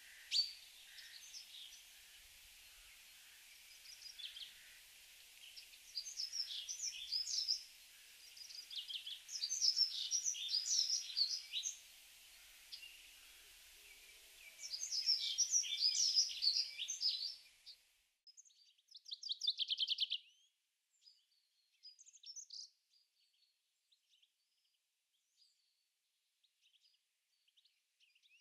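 Small songbirds singing, with many short chirps and phrases over a steady hiss. About eighteen seconds in the hiss stops abruptly, leaving scattered chirps and a brief rapid trill.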